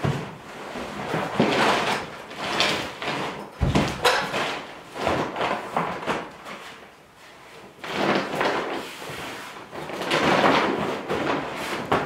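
A roll of tar paper being handled and unrolled along a wooden wall: the stiff paper rustles in irregular bursts. A sharp thump comes about three and a half seconds in.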